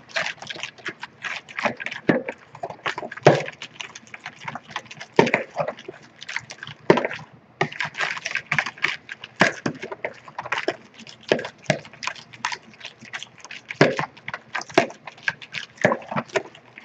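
Metal fork beating eggs, oil and sugar in a bowl, clicking rapidly and unevenly against the bowl's side, several clicks a second, with a brief pause about halfway through.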